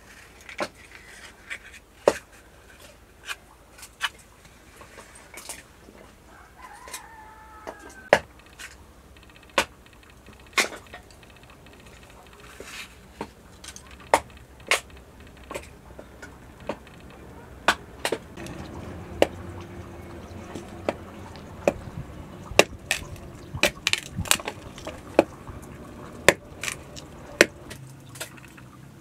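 Sharp, irregular clicks and taps, about one every second, over a low background that grows a little fuller past the middle; a brief wavering squeak about seven seconds in.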